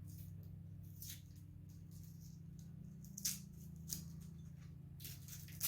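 Masking tape and paper wrapping being peeled and torn off painted parts: short rasping rips and rustles, a few at a time, the sharpest about three seconds in and near the end.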